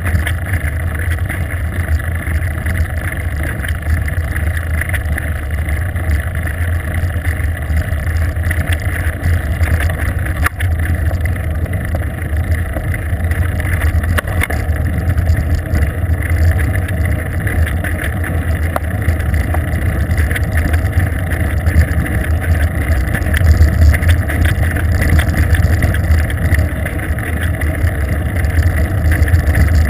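Steady low rumble of wind buffeting and tyre-on-asphalt road noise picked up by a GoPro camera on a moving bicycle.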